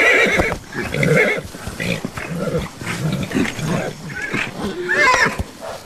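Young Lipizzaner stallions squealing and screaming in a run of short calls, the loudest at the start and an arched squeal near the end: aggressive calls of colts sparring for rank in the herd.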